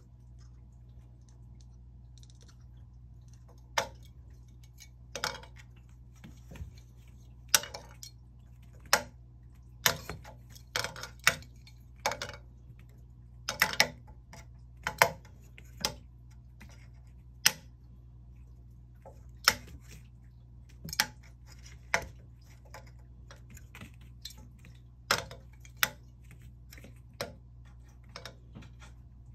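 Irregular sharp clicks and taps from a kitten scampering and playing among wooden table legs on a wooden floor, over a faint steady low hum.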